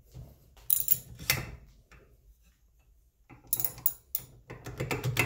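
Hand reamer being turned through a pre-drilled hole in a metal block, scraping and clicking in short bursts, with a pause of about a second in the middle.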